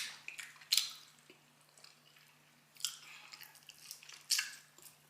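A person chewing food close to the microphone, with four sharp wet mouth crunches a second or two apart.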